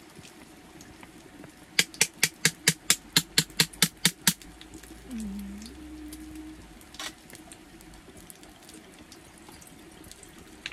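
A quick run of about a dozen sharp clicks, about five a second, as a plastic makgeolli bottle is handled at its cap. Near the end, makgeolli begins pouring into a brass bowl.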